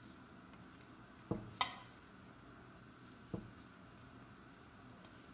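A hand mixing mashed potato in a stainless-steel bowl, faint, with three light knocks against the bowl, the second a sharper metallic click.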